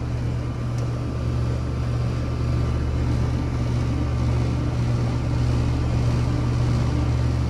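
Two 2-ton air-conditioning condensing units running, giving a steady low hum from the compressors and condenser fans.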